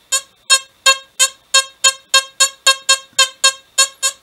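XP Deus metal detector giving its target tone for a small metal cross: short, buzzy beeps at one steady pitch, repeated about three times a second. The target reads 58–59 in the right-hand, non-ferrous sector of the vectograph.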